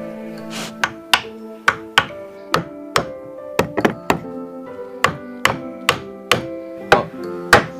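Background music with a steady series of sharp knocks, about two a second, the loudest near the end.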